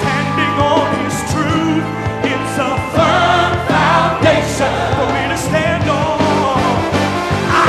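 Upbeat gospel praise song: a band with sustained keyboard and bass, cymbal hits, and singers with a choir.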